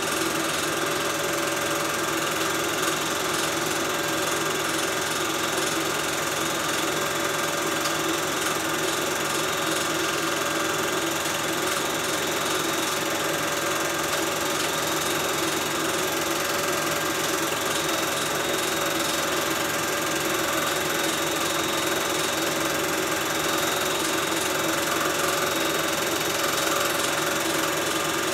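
Film projector running: a steady mechanical whir and clatter with a few fixed tones, unchanging throughout.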